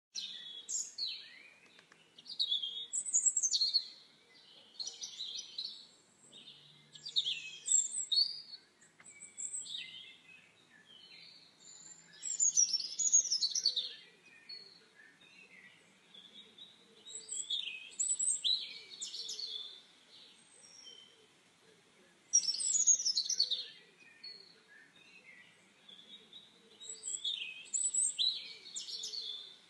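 Small birds singing and chirping in quick high-pitched phrases, in bouts that come back every few seconds.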